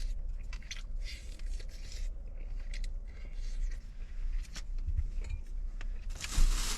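A person chewing and eating chicken, with irregular small crunches and wet mouth noises, over a steady low hum. A louder scraping rustle comes near the end.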